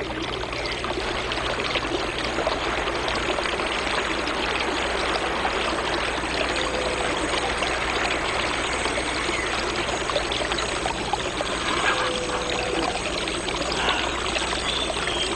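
Shallow stream running steadily over stones, an even rushing of water.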